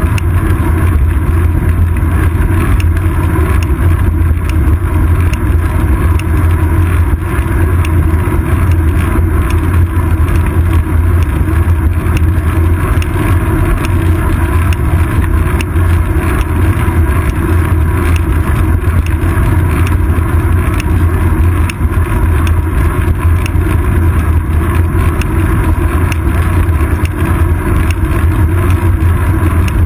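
Steady low rumble of wind and road vibration picked up by a bicycle seat-post-mounted GoPro Hero 2 in its housing as the bike rolls along the road, with faint rattling ticks throughout.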